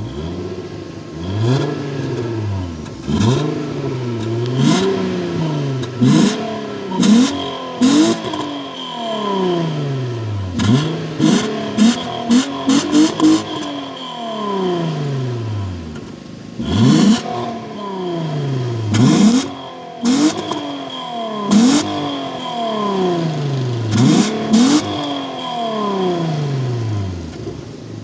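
Volkswagen Golf Mk3 VR6 engine on its stock exhaust, revved over and over. Each rev climbs quickly and falls back more slowly. Short sharp cracks come at the top of several revs, with a quick cluster of them about halfway through.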